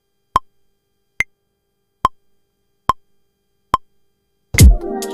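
Software metronome count-in clicking at about 71 beats a minute, one short click every 0.85 s, with one higher-pitched click marking the downbeat. Near the end a beat with a deep kick drum starts playing.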